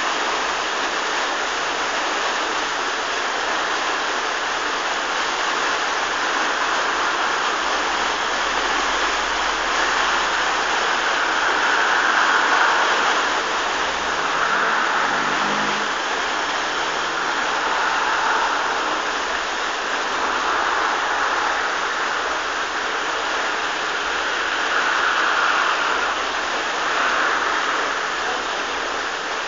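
Water rushing and churning steadily into a canal lock chamber through the opened gate paddles as the lock fills.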